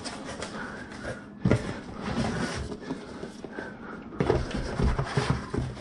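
Cardboard shipping box being opened and unpacked by hand: irregular scraping and rustling of the flaps, with a few soft knocks as a boxed item is lifted out.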